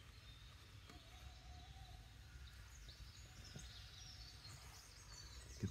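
Faint birdsong at dawn, with small birds chirping in short high notes from about three seconds in, over a low steady background rumble.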